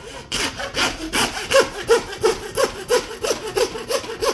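Bow-frame butcher's handsaw cutting through the knuckle end of a lamb leg's shank bone, in quick, even back-and-forth rasping strokes, about four a second, starting a moment in.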